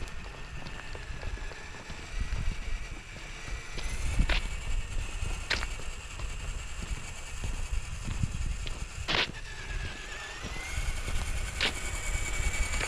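Electric motor and gear drive of a radio-controlled scale crawler truck whining steadily, the pitch dipping and rising as its speed changes, over a low rumble. A few sharp clicks or snaps break in, about four seconds in, again near six and nine seconds, and near the end.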